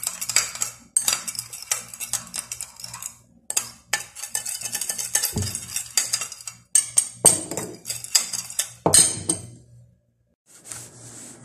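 Metal spoon stirring a liquid sauce in a glass bowl, scraping and clinking repeatedly against the bowl's sides. The stirring stops shortly before the end.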